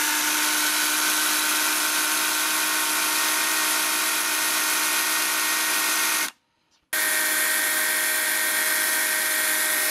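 Parkside PKSA 20-Li B2 20 V cordless chainsaw running at no load, a steady electric motor whine with the chain spinning on the bar, so the chain oil spreads over the chain. About six seconds in it breaks off for half a second, then runs again at a steady speed.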